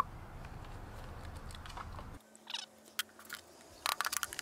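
A steady low background rumble that cuts off suddenly about two seconds in, followed by light clinks and knocks of metal paint cans being picked up and set down on a wooden table.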